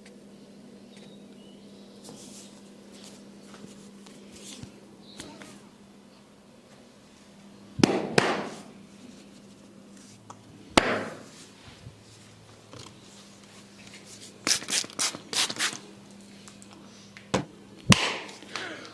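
Sharp slaps and taps of a head massage: a pair of loud strikes about eight seconds in, another near eleven seconds, a quick run of about six taps around fifteen seconds, and two more near the end.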